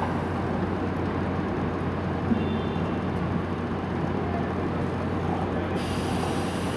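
Steady outdoor city background noise: a low traffic-like rumble with a steady low hum under it. A brighter hiss joins about six seconds in.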